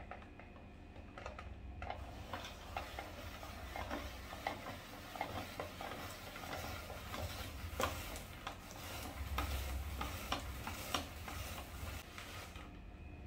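Hand-cranked spiralizer cutting a yellow squash into noodles: a crisp scraping crackle with scattered clicks from the blade and turning handle. It starts about two seconds in and stops near the end.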